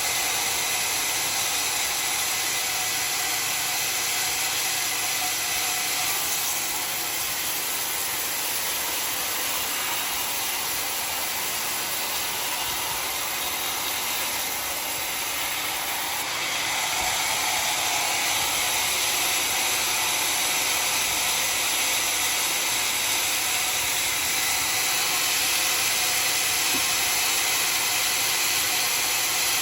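Homemade sawmill blade cutting through a dry, very hard acacia log, a steady harsh hiss of sawing that eases off a little partway through and grows louder again about halfway.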